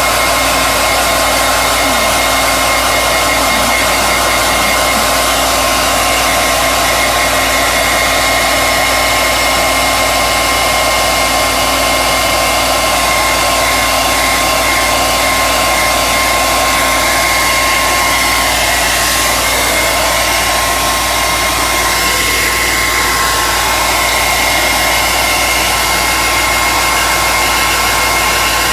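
Hand-held hair dryer running steadily on a high setting, a loud even rush of air with a steady high whine from its motor.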